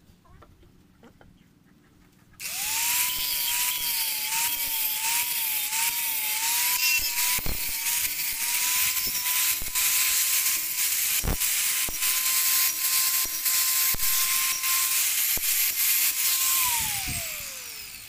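Angle grinder with a sanding pad sanding a carved wooden panel. It starts about two seconds in, its motor whine wavering while it is pressed into the wood, then runs steady and winds down near the end.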